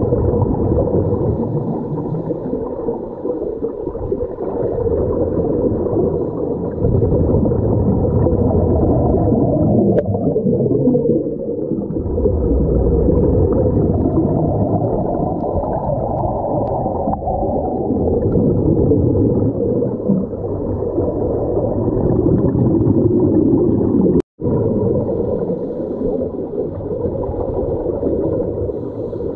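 Muffled underwater noise picked up by a submerged camera: scuba divers' regulators bubbling and gurgling as they breathe out. A brief dropout to silence comes about three-quarters of the way through.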